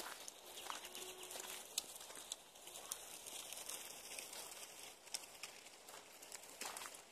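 Quiet outdoor ambience with scattered light footsteps and rustles on a dry, pine-needle-covered forest floor.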